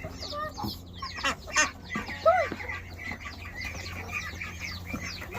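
A flock of chickens clucking and squawking, many short overlapping calls, with a louder squawk about two seconds in, over a steady low hum.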